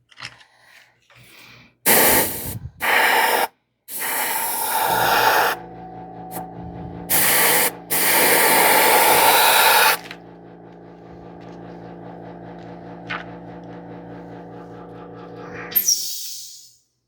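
An airbrush spraying paint in five hissing bursts of a second or two each, over the first ten seconds. Underneath, an airbrush compressor motor hums with a fast steady pulse from about five seconds in until it cuts off, just after a last short burst near the end.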